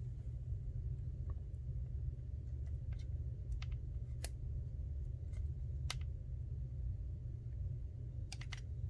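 Scattered small, sharp clicks and taps from handling phone parts and repair tools, about ten spread unevenly over several seconds, with a pair close together near the end. A steady low hum runs underneath.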